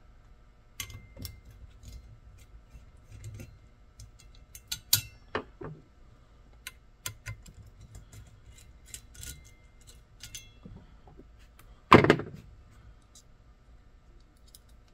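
Scattered small clicks and taps of a screwdriver and screws as the lighting circuit board is unscrewed from a Lionel Superliner passenger car, with one much louder knock about twelve seconds in.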